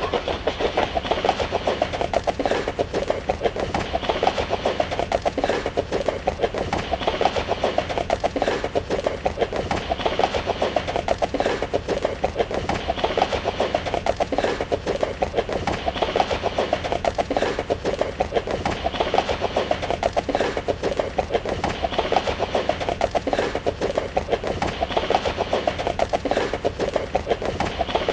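Horse hooves galloping in a fast, steady rhythm of hoofbeats, with a pattern that repeats about every three seconds.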